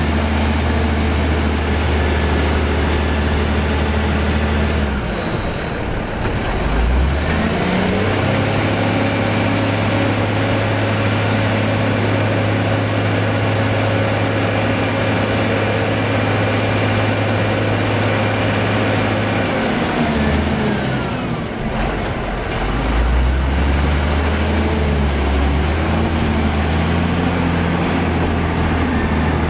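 Cat 740 articulated dump truck's diesel engine idling, then revving up about five seconds in and holding a steady higher speed as it drives the hydraulic hoist raising the loaded dump body. The revs drop around twenty seconds in and rise again a couple of seconds later as the body tips further.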